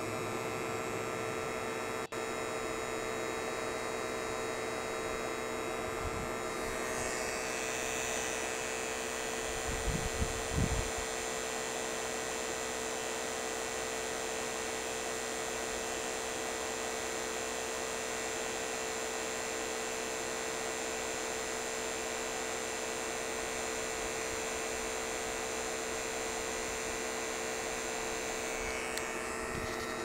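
HVAC rotary-vane vacuum pump running with a steady hum while holding a deep vacuum, around 12 microns on the gauge. A few low bumps about ten seconds in.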